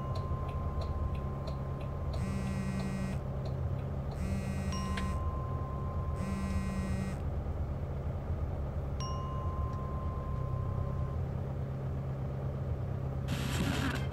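Steady low drone of a car on the move, heard from inside the cabin. Three electronic chimes sound about two seconds apart, with a few longer single beeps. Near the end music and a voice come in.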